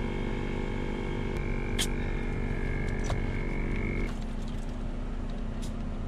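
Viair portable air compressor running steadily, inflating a freshly plugged car tire through a dial-gauge inflator chuck. About four seconds in, the higher part of the hum cuts off while a lower hum goes on.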